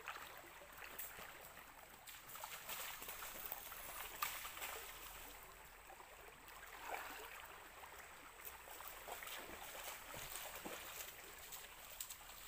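Faint trickling, flowing water, with scattered small clicks and taps.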